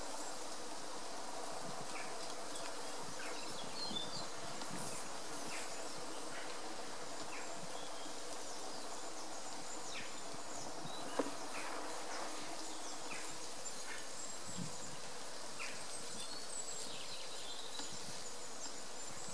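Honeybees buzzing at a busy hive entrance, a steady hum with short passing buzzes as foragers fly in and out. A single sharp click about eleven seconds in.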